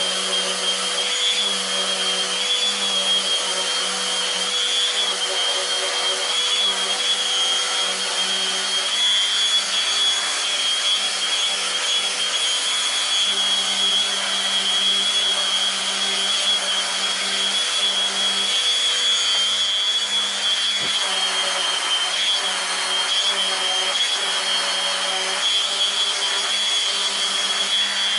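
Electric power sander running steadily on wooden parts, a constant high motor whine over a lower hum, sanding them down to 120 grit.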